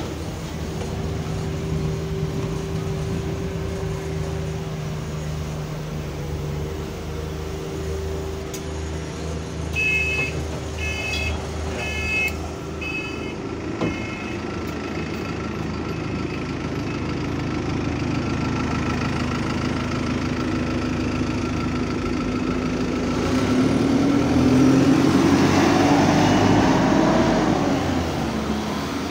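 Alexander Dennis Enviro200 single-deck bus with its engine running, four short two-tone beeps of the door warning about ten seconds in. Near the end the engine sound grows louder and rises in pitch as the bus pulls away from the stop.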